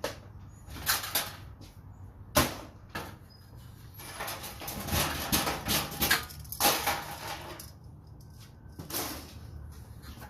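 Metal parts of a fluorescent light fixture clanking and rattling as it is taken apart by hand for scrap. There are single sharp knocks, then a busier stretch of clatter and scraping in the middle.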